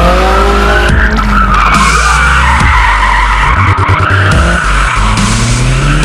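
Drift car's engine revving up and down while its rear tyres squeal through a long sideways slide, with bass-heavy music underneath.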